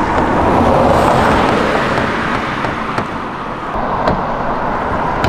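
A car passing on the street, its road noise swelling and then fading over the first few seconds. A couple of light clicks follow near the end.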